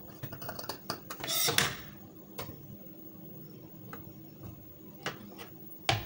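Scissors cutting through fabric: a longer cutting stroke about a second and a half in, then a few single sharp clicks spread over the rest.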